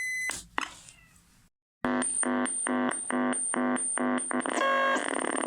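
Fort Processor sound-art synth circuit's electronic output. A steady high tone cuts off with a click as the circuit is switched off. After a moment of near silence it beeps in even pulses about two and a half times a second, and near the end it changes to a fast buzzy warble. The circuit is still not working right, which is put down to remaining bad solder joints.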